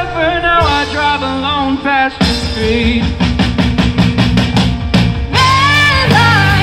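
Rock band playing live, a woman singing the lead over the band. About two seconds in the vocal drops out for a short instrumental stretch carried by a steady drumbeat, and the singing comes back near the end.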